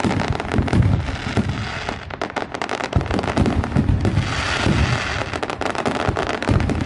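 Fireworks display: rapid, dense crackling of bursting stars over repeated deep booms of shells going off.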